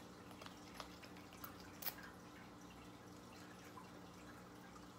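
Near silence with a faint steady hum, broken by a few faint clicks and, about two seconds in, one short spritz from a small pump spray bottle of body spray.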